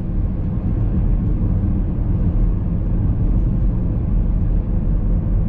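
Steady road noise inside a moving car: a constant low rumble of engine and tyres on the road.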